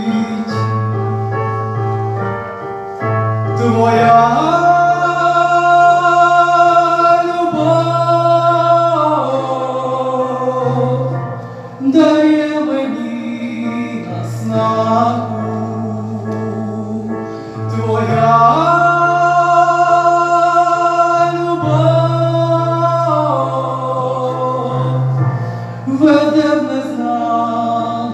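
Slow ballad sung into a microphone over a recorded backing track: long held melody notes that slide down at the ends of phrases, over a steady bass line.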